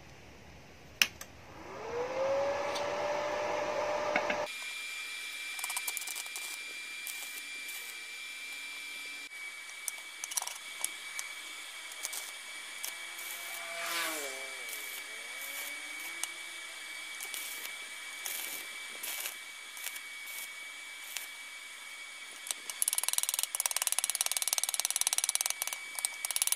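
Stick (arc) welding of a small fitting: the arc crackles and spits irregularly over a steady high whine. Near the end come a quick run of sharp metal taps from a chipping hammer knocking slag off the fresh weld. Before the welding there is a brief hum that rises in pitch and then holds steady.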